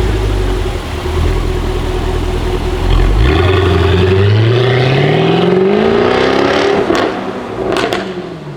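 Jaguar F-Type Project 7's supercharged V8 running low, then accelerating hard about three seconds in, its exhaust note rising steadily in pitch for about four seconds. On lift-off it gives two sharp exhaust crackles near the end.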